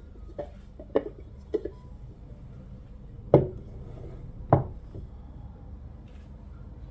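A handful of short knocks and clatters, hard objects set down or bumping together, the two loudest about three and a half and four and a half seconds in.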